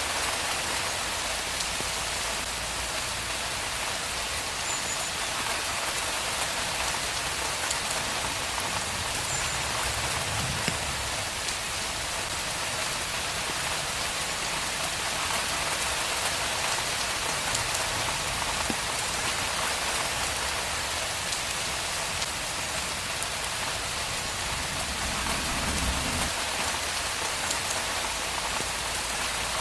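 Steady rain falling: an even, unbroken hiss of drops on a surface.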